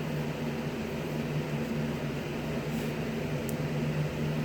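Steady low machine hum of a running appliance in the room, with a faint brief tick about three and a half seconds in.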